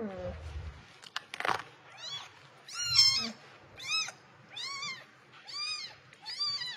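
Newborn kitten mewing: six short, high-pitched cries that rise and fall in pitch, about one a second, from about two seconds in. A brief scratchy noise comes just before them.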